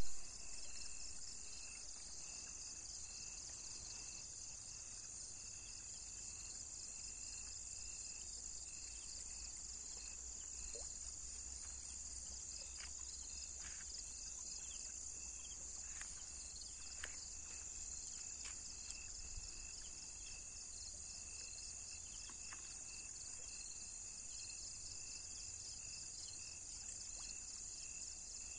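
Crickets chirring, a steady high-pitched trill that never lets up, over a faint low rumble, with a few faint clicks about halfway through.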